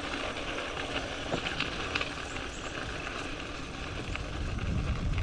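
Kit-built electric mountain bike being ridden on a trail: a steady rolling noise with a few light knocks and rattles.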